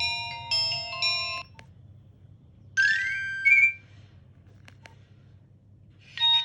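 Nokia 1650 mobile phone ringtones playing through its small loudspeaker. A melody of clean electronic notes stops about a second and a half in. A short blip and a brief rising run of notes follow, then a couple of key clicks, and a new, busier ringtone starts near the end.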